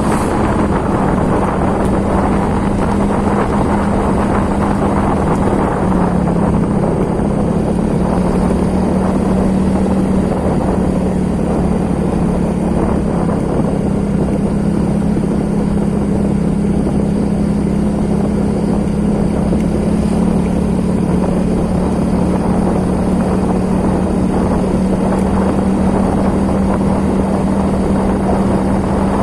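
An engine running steadily at an even pitch, which drops slightly about six seconds in, under a dense hiss of noise.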